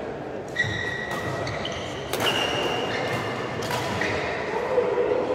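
Several sharp hits of badminton rackets on a shuttlecock during a rally, each followed by a brief high ring, in an echoing sports hall.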